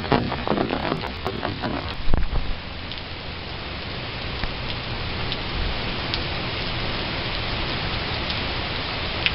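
Storm rain pouring steadily, with a scatter of sharp knocks and crackles in the first two seconds, the loudest about two seconds in.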